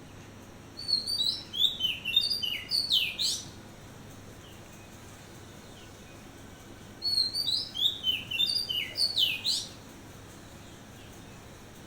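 Oriental magpie-robin singing: two phrases of quick, clear whistled notes, each note sweeping in pitch, the first phrase about a second in and the second about halfway through, each lasting some three seconds.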